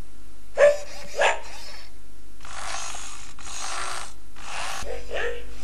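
i-Cybie robot dog sounding animal calls from its speaker: two short dog-like barks in the first second or so, then three longer breathy, hissing sounds, then two more short yelps near the end.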